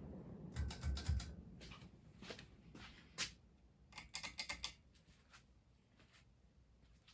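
Faint, irregular clicks and taps in small clusters, the loudest about a second in.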